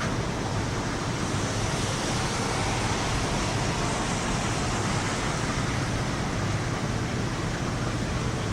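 Steady rushing noise of a thunderstorm's downpour and wind, even throughout with no thunderclap.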